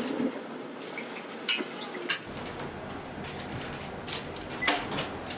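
Kitchen clatter of dishes and utensils: a few sharp clinks and knocks over steady background noise, the loudest near the end. A low hum comes in a little over two seconds in.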